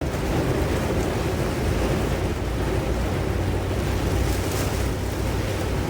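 Tropical-storm wind buffeting the microphone: a loud, steady rushing and rumbling noise.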